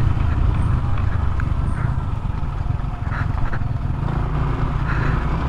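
Yamaha NMAX 155 scooter's single-cylinder engine running while being ridden: a steady low rumble of engine and riding noise with a few faint ticks.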